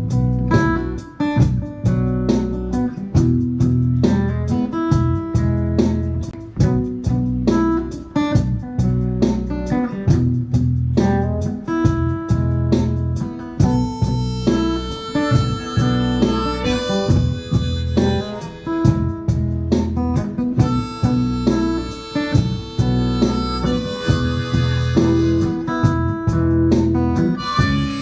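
Live blues: an acoustic guitar strums a steady rhythm from the count-in, and a harmonica (blues harp) comes in about halfway through, playing held, wailing notes over it.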